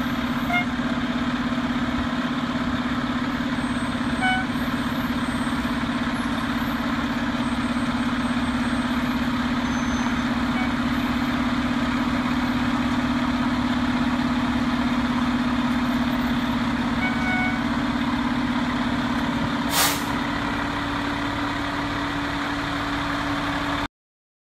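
Tractor-drawn aerial ladder fire truck's diesel engine running steadily as the truck creeps forward at low speed, with a brief sharp burst of air-brake hiss about twenty seconds in. The sound cuts off suddenly near the end.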